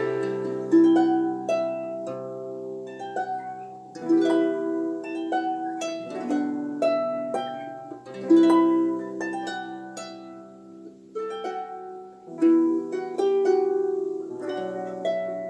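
Harp playing a slow melody: plucked notes and chords that ring and fade, with a strong chord about every four seconds and quicker runs of notes between.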